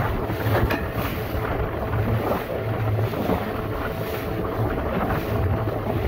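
Wind buffeting the microphone over a small Suzuki outboard motor running steadily, pushing a 12-foot aluminium boat through choppy water, with waves splashing against the hull.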